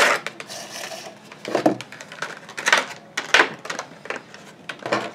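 Small cardboard collectible box being handled and opened to pull out a vinyl figure: irregular scraping, rustling and tapping of cardboard and packaging, several separate bursts.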